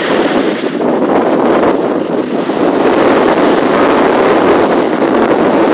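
Rough sea: waves and surf rushing in a loud, steady wash, with wind on the microphone.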